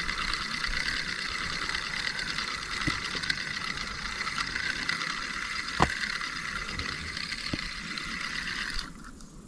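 Spinning reel cranked steadily to retrieve a crankbait, its gears whirring without a break, with one sharp click about two-thirds of the way through. The whir stops abruptly shortly before the end.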